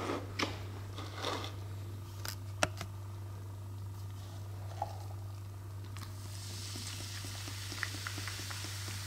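A few light knocks as phones are set down in a row on a hard surface. About six seconds in, the fine hiss and crackle of carbonated cola fizzing begins, over a steady low hum.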